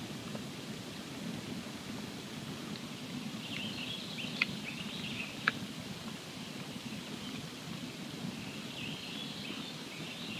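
Wood campfire burning: a steady low rush with fine crackling and two sharp pops about halfway through.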